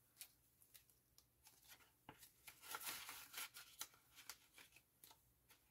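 Faint rustling and crinkling of polymer banknotes and a plastic binder pouch as cash is slid in by hand, with small taps and clicks, busiest in the middle.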